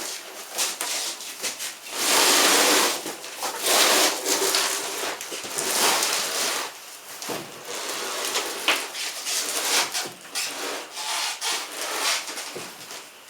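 Wood scraping and rubbing in uneven bursts, loudest about two seconds in, as the homemade wooden elevator and its load are worked into place.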